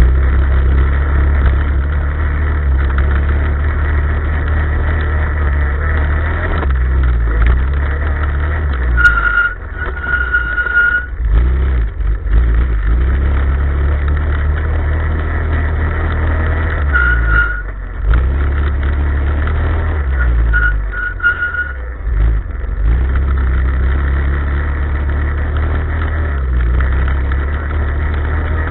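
Off-road vehicle engine running under load while travelling over a dirt track, the throttle easing off briefly a few times, with heavy wind rumble on the microphone and a thin whine that comes and goes.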